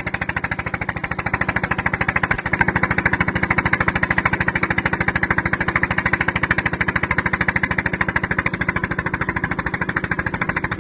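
A small engine running steadily with a rapid, even pulsing beat, a little louder from about two and a half seconds in.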